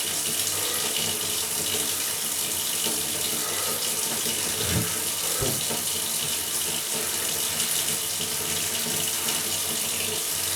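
Steady hiss of water running from a kitchen tap, with a couple of faint knocks about halfway through.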